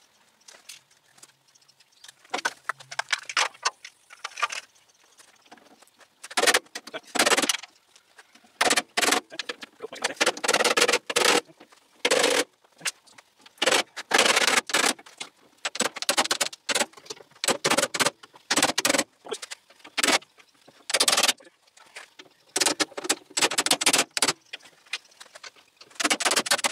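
Short bursts of rapid sharp metallic impacts, repeated every second or two from about six seconds in, as a tool works old screws loose along a 1930 Model A Ford's steel cowl.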